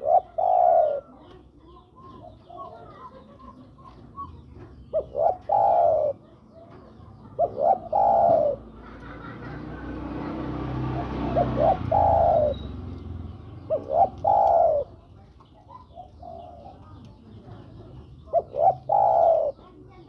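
Spotted dove (tekukur) cooing its advertising call, the male's call to a female. Six phrases come a few seconds apart, each a quick run of short notes ending in a longer coo. A rushing noise swells and fades in the background around the middle.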